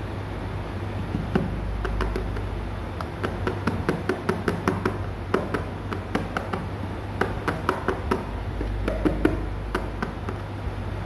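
Irregular light taps and clicks on a hard plastic chair seat, some in quick runs and others single, over a steady low hum.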